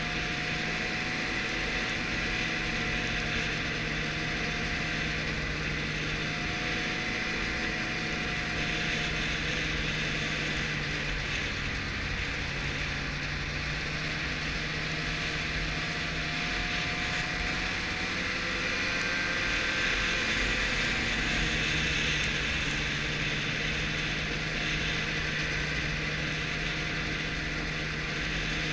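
Arctic Cat snowmobile running steadily while under way, its engine hum and drive noise heard from the rider's seat, getting slightly louder about two-thirds of the way through.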